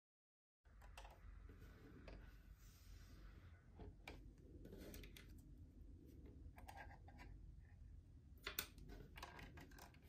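Faint, scattered small clicks and taps of a 1:18 scale AutoArt diecast Lamborghini Huracán Evo model being handled, over a low steady hum. The sound cuts in about half a second in, and one sharper click comes about eight and a half seconds in.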